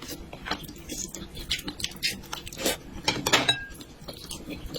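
Eating sounds: cutlery clinking and scraping against a dish, with chewing, and a cluster of louder clicks about three seconds in.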